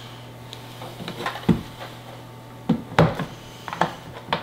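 A handful of sharp knocks and clicks from the plastic housing of a 5G home-internet gateway being handled and moved on a wooden desk, loudest about one and a half and three seconds in, over a low steady hum.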